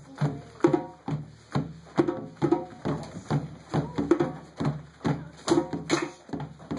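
Live West African drumming on a rope-tuned hand drum, a driving rhythm of sharp strokes about two a second with lighter beats in between, accompanying dance practice.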